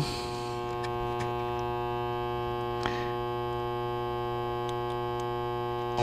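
An LM1875 chip amplifier's speaker puts out a steady low, buzzing mains hum. The supply is running with no filter capacitors, so its unsmoothed rectifier ripple comes through as hum. A faint click comes about three seconds in.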